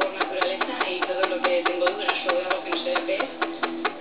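Rose-ringed (Kramer) parakeet's beak tapping rapidly on a hard tabletop among food crumbs, about six or seven sharp taps a second.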